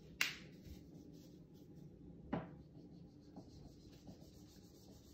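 Two short, sharp knocks about two seconds apart, the first the louder, against faint room tone.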